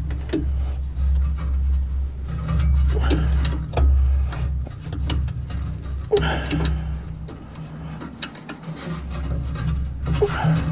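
Rubbing and scraping with scattered light clicks: hands and a wrench working a small retaining clip onto a clutch cable in a cramped space. A steady low hum runs underneath.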